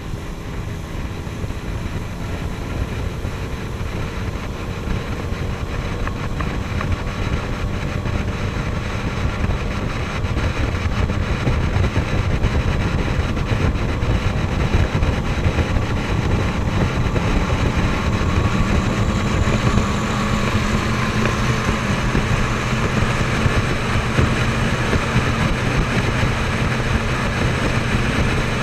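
Motorboat engines running steadily at speed, heard from aboard a moving boat, with a second speedboat running close alongside. The sound grows louder about ten seconds in.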